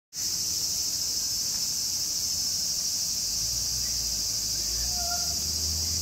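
Steady, loud, high-pitched drone of an insect chorus, unbroken throughout. A single short pitched call sounds just after five seconds in.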